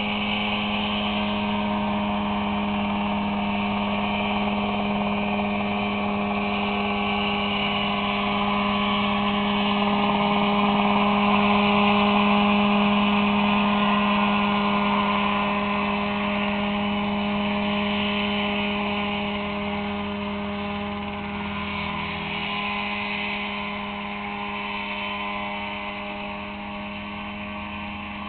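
Mosquito ultralight helicopter hovering low, its engine and rotor running steadily at a constant pitch. Louder around the middle, then quieter toward the end.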